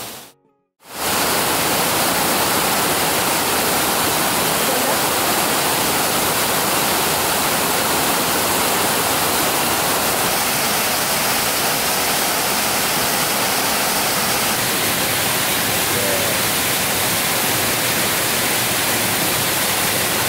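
Steady rush of a waterfall pouring into a plunge pool, after a moment of silence right at the start.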